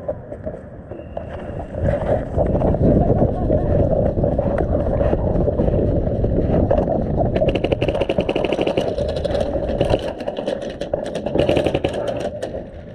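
Airsoft guns firing rapid strings of shots, starting a little past halfway and going on in bursts almost to the end, over a steady low rumble.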